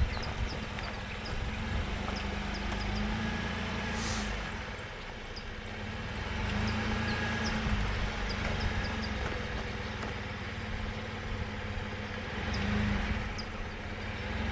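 Chevrolet Colorado ZR2 pickup's engine running at low speed as the truck crawls along a dirt trail, the revs swelling and easing several times, with faint scattered clicks and a short rush of noise about four seconds in.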